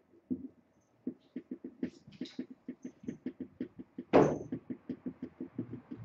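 A quick run of light taps or knocks on a hard surface, about three a second, with one louder brief sound about four seconds in.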